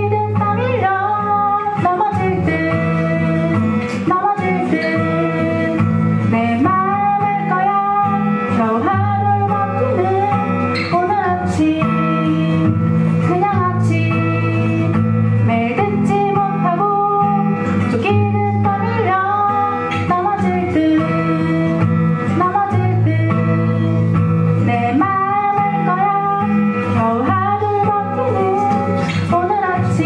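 A woman singing into a microphone over an acoustic guitar accompaniment, a continuous song with no break.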